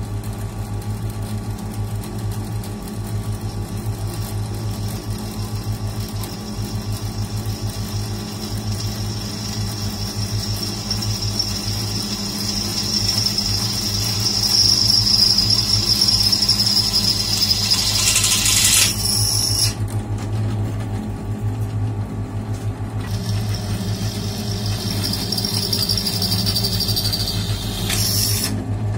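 Benchtop drill press running steadily with a low motor hum, its bit drilling through the thin steel shell of an old fire extinguisher. A high squeal from the bit cutting steel builds from about ten seconds in, cuts off abruptly near nineteen seconds, and comes back for several seconds near the end.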